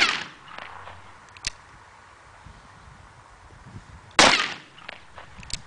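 Two shots from a Pietta 1851 Colt Navy replica .44 cap-and-ball revolver on a 25-grain Pyrodex load, one right at the start and one about four seconds later, each with a short echo. Between them and again near the end comes a sharp metallic click as the single-action hammer is cocked for the next shot.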